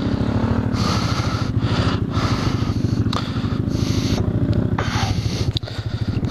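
Motorcycle engine running under throttle while the bike is ridden through soft sand, with bursts of rushing hiss coming and going over it.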